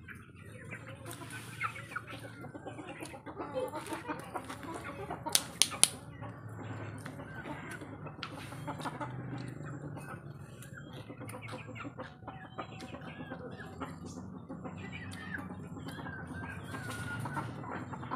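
Domestic chickens clucking in short, repeated calls. A few sharp clicks stand out about five and a half seconds in.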